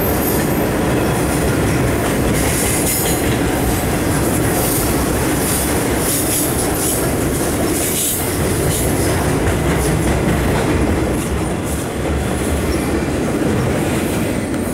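Freight train's loaded flatcars rolling past: a steady rumble of steel wheels on the rails, with scattered clicks as the wheels cross the track.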